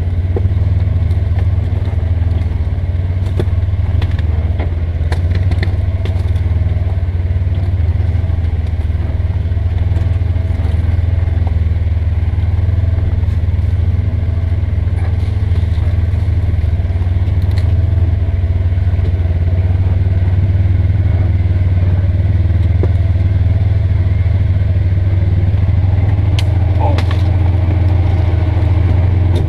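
Polaris Ranger XP 900 side-by-side's twin-cylinder engine running steadily with a deep drone while riding, with scattered light clicks and knocks over it.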